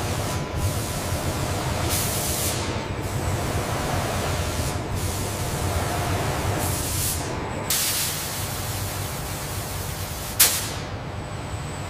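Steady hiss of spray nozzles coating an aircraft fuselage, over a low, continuous factory rumble. Several sharper bursts of spray come through, the loudest and sharpest near the end.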